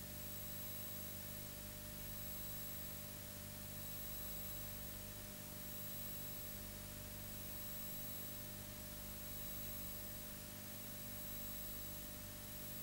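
Steady hiss with a low electrical hum and faint fixed whine tones, with no other sound.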